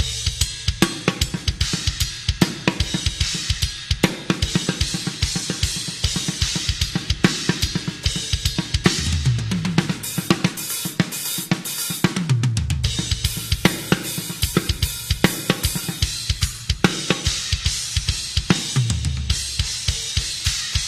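Drum kit played with Centent Mist Pro cymbals: a busy groove of bass drum and snare under a constant wash of hi-hat, ride and crash cymbals. Tom fills run down in pitch about nine seconds in, again near thirteen seconds, and near the end.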